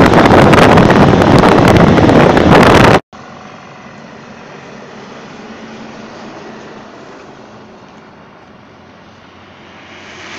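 Loud wind rush on the microphone of a camera on a moving motorcycle, mixed with vehicle noise. It cuts off suddenly about three seconds in, leaving only a faint, steady background.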